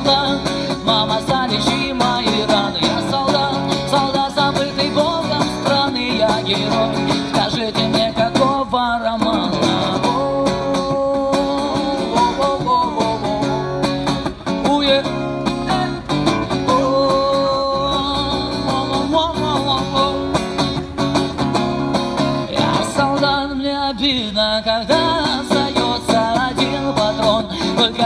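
Male street musician singing a Russian rock song while strumming an acoustic guitar.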